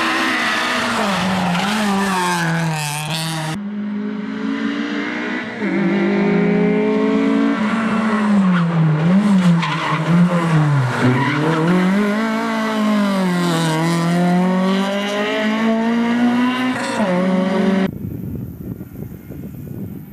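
Honda Civic VTi rally car's four-cylinder VTEC engine revving hard at stage pace, its pitch climbing and dropping again and again through gear changes and braking. The sound jumps abruptly twice, and near the end it falls to a faint, distant engine.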